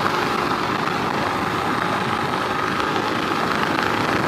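Keeway RKS 100 motorcycle's single-cylinder engine running at a steady road speed, under steady wind and road noise on the rider's microphone.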